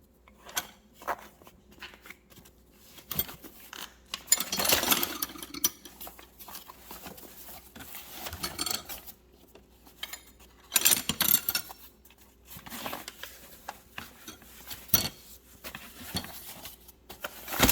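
Steel hand tools from a metric set clinking and rattling as they are handled in a toolbox drawer: scattered clicks, with louder clattering about four to five seconds in and again around eleven seconds.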